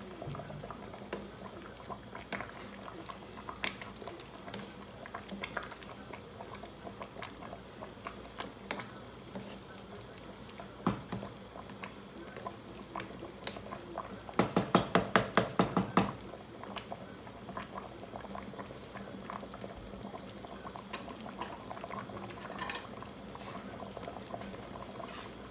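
Pot of bamboo-shoot soup boiling with a steady bubbling and small pops, stirred with a wooden spatula. About halfway through comes a quick run of about ten sharp knocks, the loudest sound here.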